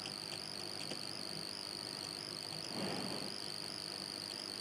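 Faint steady recording noise: a thin hiss with a continuous high-pitched whine, a few faint clicks near the start and a brief soft rustle about three seconds in.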